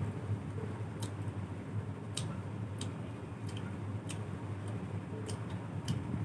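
A person chewing puffed rice with chicken curry, with light, sharp mouth clicks at a steady pace of about one every 0.6 seconds, over a steady low hum.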